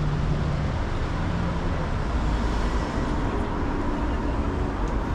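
Street traffic: cars driving past with a steady rumble of engines and tyres, and a low engine hum from a nearby vehicle that fades out about a second and a half in.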